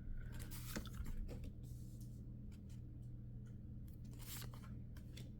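Mini booster pack wrapper being torn and handled: short, scattered rustles and crinkles with a few clicks, busiest in the first second and again near the end, over a low steady hum.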